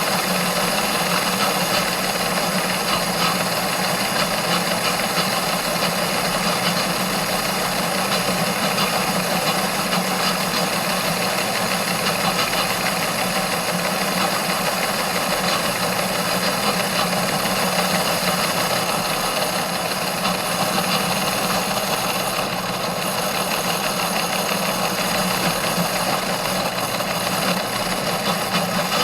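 A machine or engine running steadily with a rapid, even rattle, unchanged throughout.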